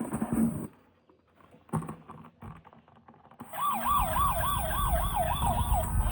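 Toy emergency vehicle's electronic siren, a fast warble rising and falling about three times a second, starting about three and a half seconds in over a low rumble. Before it, a knock and a click of the toy being handled.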